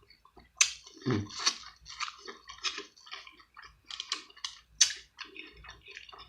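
Close-miked chewing of seafood, with irregular wet mouth clicks and crackles throughout.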